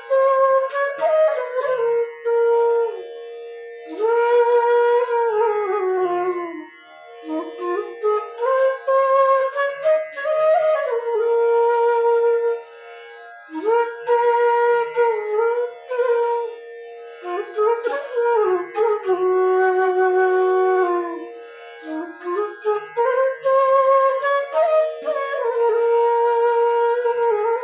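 F sharp bass bamboo flute (bansuri) playing slow, gliding melodic phrases in a tune and tone check, with short breath pauses between the phrases, over a steady background drone.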